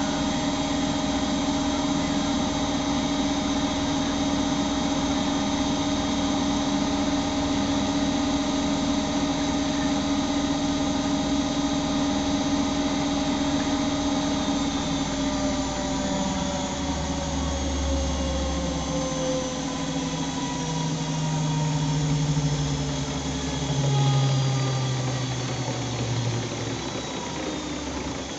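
Siemens Siwamat iQ 714 washing machine with its motor and drum whining at a steady high speed. About halfway through, the whine starts falling in pitch as the drum slows, typical of a spin cycle winding down. Deep hums come and go near the end as it slows.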